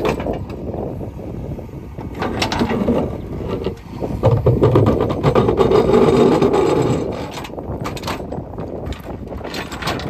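JCB 3DX backhoe loader's diesel engine working under load as the backhoe bucket digs and scrapes through stony soil, with rattles and knocks of stones against the steel bucket. Loudest from about four to seven seconds in.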